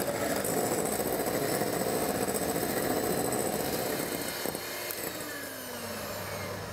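Electric hand mixer running steadily, its beaters whipping egg whites to a foam in a glass bowl. Past the middle it is switched down and the motor's pitch falls as it slows.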